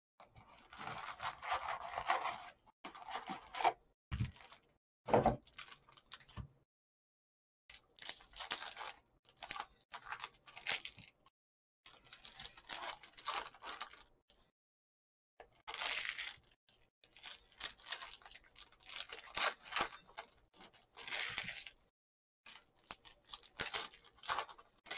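Foil trading-card packs of Panini Contenders football crinkling and tearing as they are handled and ripped open, in short crackly bursts with brief silent gaps. Two dull knocks about four and five seconds in.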